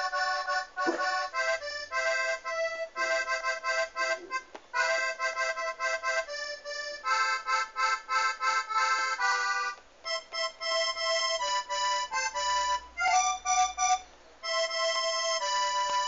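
Accordion sound from a melodeon app on a tablet, played by tapping the on-screen buttons and heard through the tablet's speaker. It plays a quick melody of changing notes and chords in short phrases, with two brief breaks in the second half.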